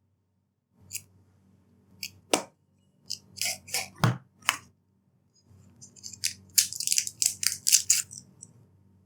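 Packaging of a tablet box being handled and opened: a few sharp clicks and short scrapes, then a quick run of crisp rustling and tapping from about six seconds in.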